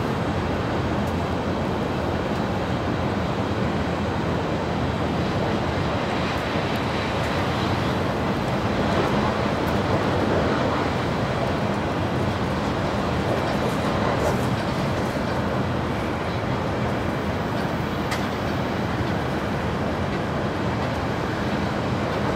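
Steady running noise of an N700-series Tokaido Shinkansen at speed, heard inside the passenger cabin: an even, continuous rush of wheels on rail and air, with no distinct clicks.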